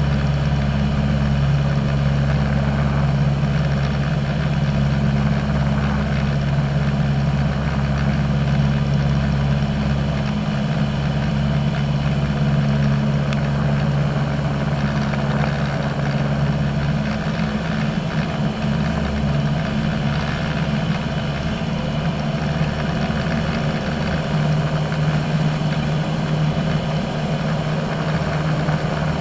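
Single-engine light aircraft's piston engine and propeller droning steadily in cruise, heard inside the cockpit. The deep tones of the drone thin out for a while from about seventeen seconds in.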